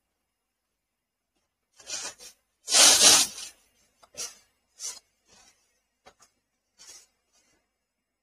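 A series of short rustling, rubbing noises, the loudest a burst lasting nearly a second about three seconds in, followed by several fainter scrapes.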